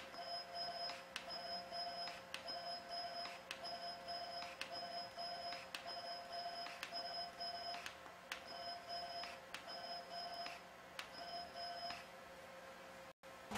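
Jeisys ULGEN HIFU handpiece firing its 1.5 mm cartridge shot after shot. A steady beeping tone sounds while each shot is delivered, and a click separates the shots, about once a second, until the firing stops near the end.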